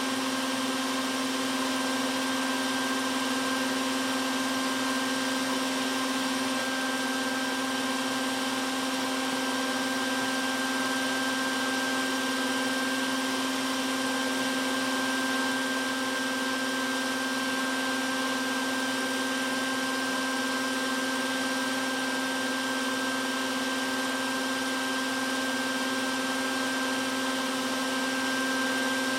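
Bee vacuum's motor running steadily with a constant, unchanging hum.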